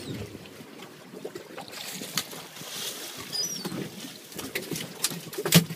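Wind and waves around a small open fishing boat at sea, with scattered knocks and clicks that get louder and more frequent near the end. A few short, high, squeaky chirps come through near the start and again about three and a half seconds in.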